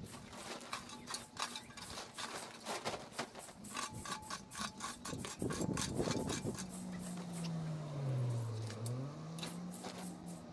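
A garden rake scraping over the lawn in repeated short strokes as pruned cherry twigs are gathered. In the second half a low hum falls in pitch and then rises again.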